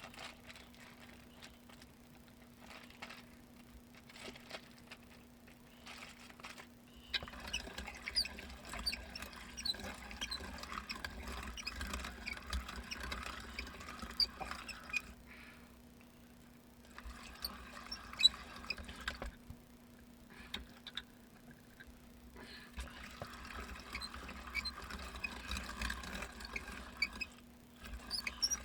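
Weston No. 32 hand-cranked meat grinder being turned, with meat squelching and crackling through the blade and plate amid small squeaks and clicks. It comes in three long spells with short pauses between, the first starting about seven seconds in.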